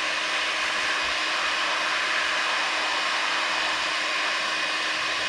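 Handheld electric heat gun running, a steady rush of blown air and fan noise, as it shrinks glue-lined heat-shrink butt connectors on wire splices.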